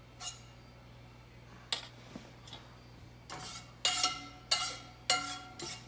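A spoon clinking and scraping against a metal pot while bacon grease is spooned into it: a couple of separate knocks, then a quicker run of ringing clinks in the second half.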